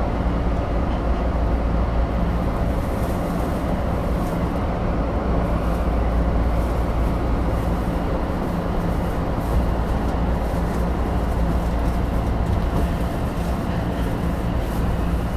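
Tokyo Metro Marunouchi Line 2000-series subway train running at a steady speed: a continuous low rumble of wheels on rail with a steady hum from the running gear.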